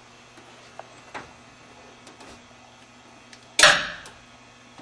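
Electronic throttle stop on a drag car's throttle linkage working with the pedal held to the floor and the engine off: a couple of faint clicks, then one sharp, sudden noise about three and a half seconds in that dies away within half a second.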